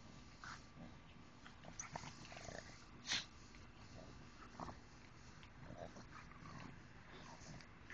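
A French bulldog and a pug at play, making faint, short dog noises scattered through, with one sharper, louder sound about three seconds in.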